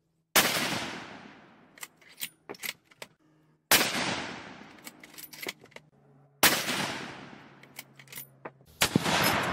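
Three rifle shots from a bolt-action Winchester Model 70 Featherweight Compact in .243 Winchester, about three seconds apart, each a sharp crack that fades out over two seconds or more. Light clicks between the shots as the bolt is worked, and a further rush of noise near the end.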